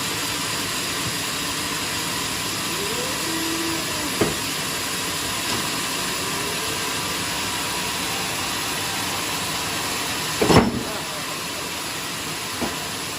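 Band sawmill running with a steady hiss, with a short knock about four seconds in and a louder knock about ten and a half seconds in.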